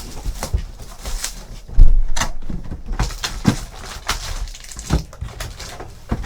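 Trading card box and packs being handled and opened: irregular crinkling, rustling and small knocks, with one loud thump about two seconds in.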